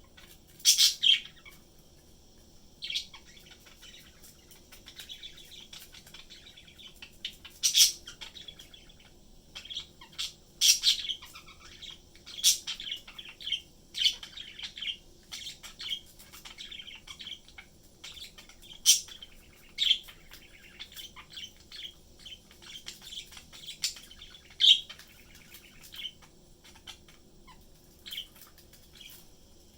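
Pet budgerigars chirping and warbling in their cage: a run of short chirps and chattering, with several sharper, louder calls scattered through.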